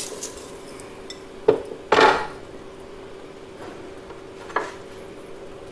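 A large pot of water at a boil with chopped onions, jalapeño and garlic, over a steady low hum. A short knock comes about a second and a half in, then a brief clatter against the pot, and a lighter knock near the end.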